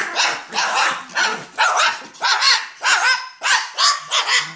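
Pet dog barking over and over, about eight high-pitched barks at roughly two a second.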